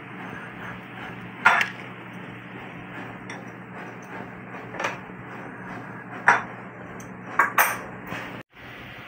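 Gold wire drawn through a tungsten carbide draw plate with pliers: several short, sharp metallic clicks and scrapes at uneven intervals over a steady low hum.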